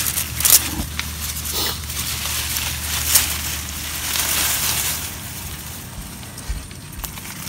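Rustling and crackling of leafy purple coneflower stalks being gathered up by hand after cutting, with a few sharp crackles among the rustle.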